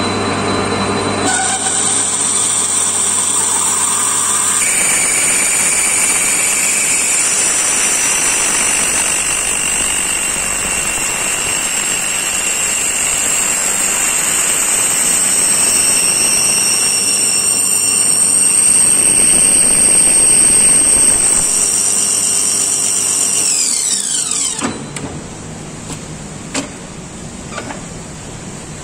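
A 14 mm H7 machine reamer squealing steadily in a hole in medium-hard ST60 steel on a lathe, a high-pitched squeal from the tool being forced through the hard material, though still safe for the cut. About 24 seconds in, the squeal slides down in pitch and stops as the lathe spins down, leaving the steady hiss of heavy rain and a couple of light knocks.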